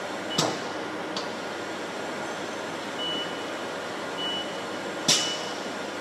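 Haas VF-4SS CNC mill running a touch-probe cycle, with a steady machine hum as the probe stylus is driven down onto the top of the aluminum block. Two sharp clicks cut through, one just under half a second in and one about five seconds in, with a few short high beeps between them.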